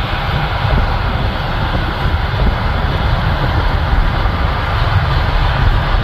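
John Deere 8R tractor running under load as its J&M grain cart's auger unloads shelled corn into a semi grain trailer: a steady low rumble with a hiss over it.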